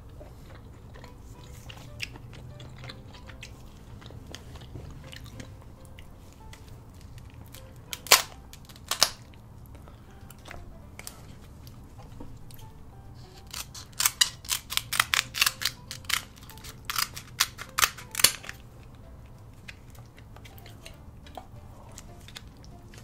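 Sharp cracks and snaps of king crab leg shells being broken open. There are two single cracks about a third of the way in, then a quick run of a dozen or so loud cracks near the two-thirds mark.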